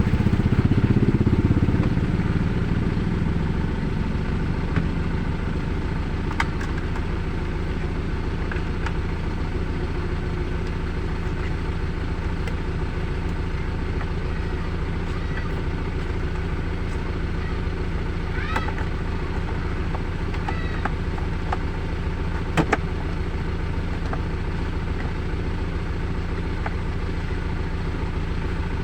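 Car engine idling steadily, a little louder for the first few seconds before settling, with a few faint clicks over it.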